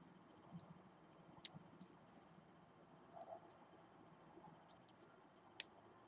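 A few scattered small, sharp plastic clicks as an automotive wiring connector and a terminal pin are worked by hand, with the loudest click about five and a half seconds in. The pin is the wrong size for the cavity and will not seat.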